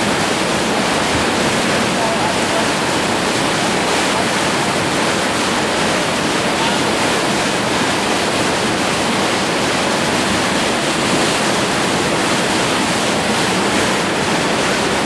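Steady, loud rush of whitewater rapids.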